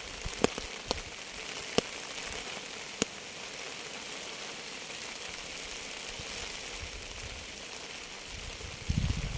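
Steady rain hiss, with four sharp taps of close drops in the first three seconds and a brief low rumble near the end.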